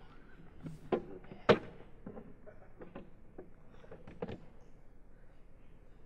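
Three knocks and thumps, with a few fainter clicks, from things being handled on a lectern. The loudest comes about a second and a half in.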